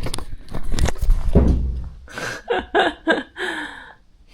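Several thumps and knocks, then a cat meowing in a run of short calls, the last one falling in pitch: the cat is asking to be let up.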